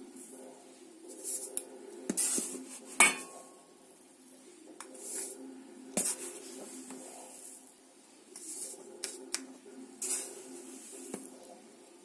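Granulated sugar being scooped from a plastic tub and poured into a glass and a stainless steel pot. Short hissing pours of sugar mix with several sharp clinks and knocks of glass against the metal pot, the loudest about three seconds in.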